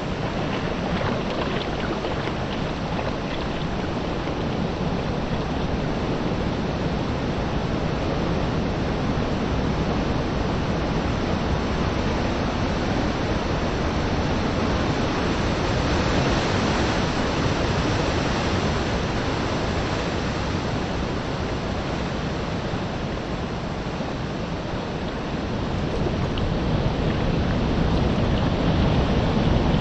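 Steady rush of small sea waves washing on the shore, mixed with wind on the microphone. It swells a little about halfway through and grows fuller and louder near the end.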